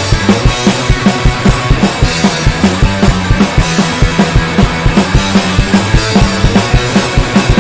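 Punk rock band playing live: electric guitar, bass guitar and drum kit driving a fast, steady beat, with no vocals.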